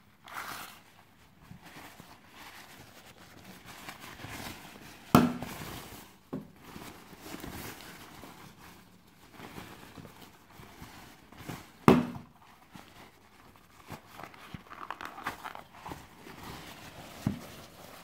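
A thin nylon tote bag being handled and unfolded, its fabric rustling and crinkling, with two sharp clicks about seven seconds apart and a smaller one near the end.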